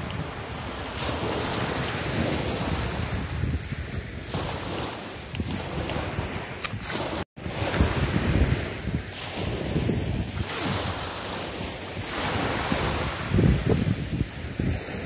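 Wind blowing across the microphone with small waves washing onto a pebbly beach. The sound drops out for an instant about halfway through.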